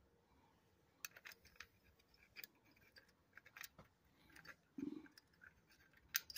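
Faint, scattered metallic clicks and light ticks as the camshaft timing gear of a Case 207D diesel is worked by hand onto its shaft. The loudest click comes about six seconds in.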